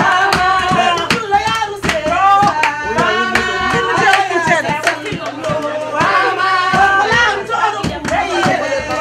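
Singing over drumming and hand-clapping: dance music with frequent sharp percussive strikes under the voice.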